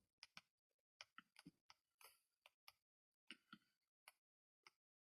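Near silence broken by a dozen or so faint, short clicks and rustles: the pages of a paperback book being leafed through to find a page.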